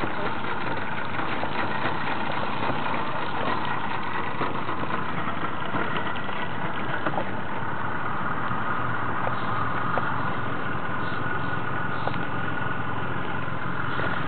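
Small fishing boat's engine running steadily at low speed.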